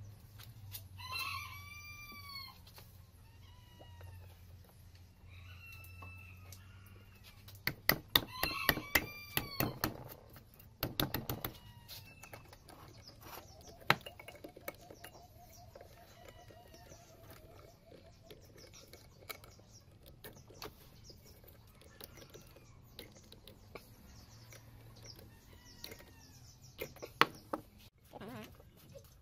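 Birds calling several times in short arched calls, over sharp clicks and taps of hand tools and metal parts as a small electric water pump is reassembled. The clicks are loudest in a quick run about eight to eleven seconds in.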